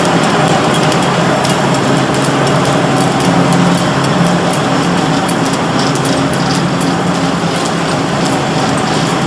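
Welding-rod production machinery running steadily, a constant mechanical hum with a rapid, irregular clatter of small clicks over it.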